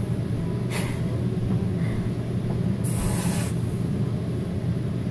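Aerosol whipped-cream can sprayed into the mouth: a short hiss of about half a second, about three seconds in, over a steady low hum.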